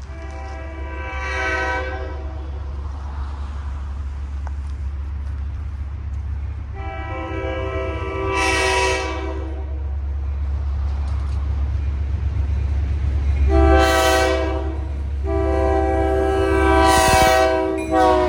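Providence and Worcester locomotive 2008's multi-chime air horn sounding four blasts, long, long, short, long, the standard grade-crossing sequence, over the low steady rumble of the train. The blasts grow louder toward the end as the train approaches.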